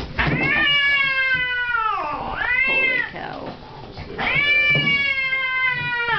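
Domestic cat yowling angrily while held wrapped in a towel for a vet exam: a long yowl, a short one, then another long one, the first dropping in pitch as it ends.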